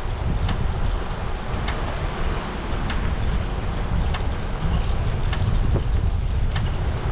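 Wind buffeting the microphone during a ride: a steady low rumble with faint, scattered ticks.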